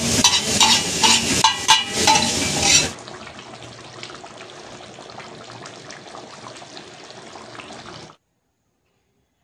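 Metal spatulas clattering against a flat griddle, about three strikes a second, over the sizzle of chow mein being stir-fried. About three seconds in this gives way to a much quieter steady sizzle and bubbling of chicken curry simmering, which stops abruptly about eight seconds in.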